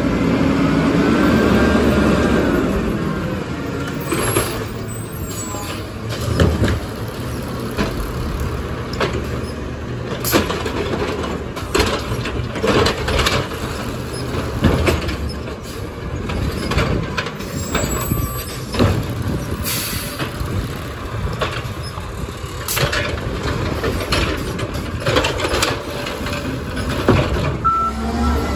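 Natural-gas-powered Peterbilt 320 automated side-loader garbage truck working a row of trash carts: the engine swells as it pulls up, then keeps running under repeated sharp clanks and bangs as the arm grabs, lifts and dumps the carts.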